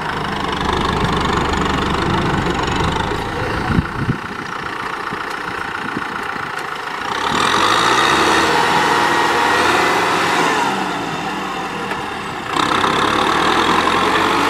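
Kubota M6040SU tractor's diesel engine running under load as it drags a rotary cultivator through wet, muddy soil. Its pitch rises and falls, and it gets louder about seven seconds in, drops back briefly near twelve seconds, then picks up again. A couple of sharp knocks come about four seconds in.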